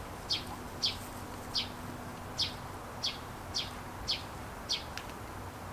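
A small bird chirping, about nine short, high chirps at an uneven pace of roughly one every half to three-quarters of a second.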